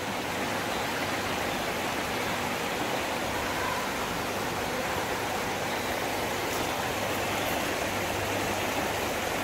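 Fountain water splashing steadily.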